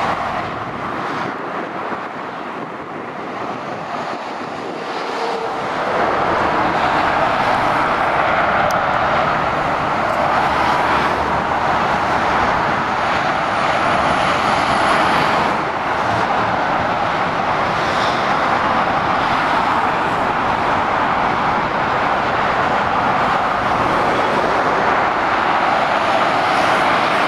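Motorway traffic passing below: heavy goods lorries and cars giving a steady rush of tyre and engine noise, a little quieter at first and louder from about six seconds in.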